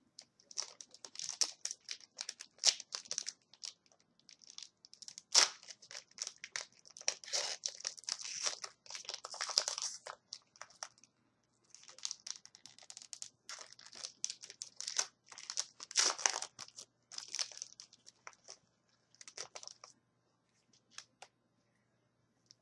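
Plastic wrapper of a Donruss hockey card pack crinkling and tearing as it is handled and ripped open, in irregular crackling bursts that stop about 20 seconds in.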